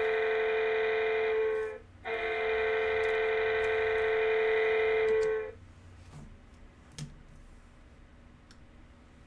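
Electronic buzzer sounding two long, steady, high tones, each about three and a half seconds, with a short break between them; after it stops a few faint clicks of cards being handled.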